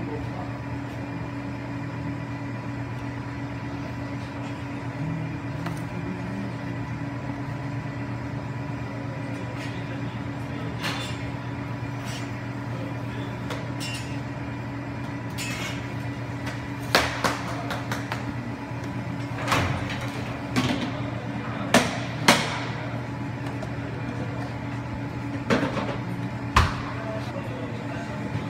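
A steady electrical hum runs throughout, and over it come about ten sharp knocks and clacks of kitchen utensils on a hard surface, most of them in the second half.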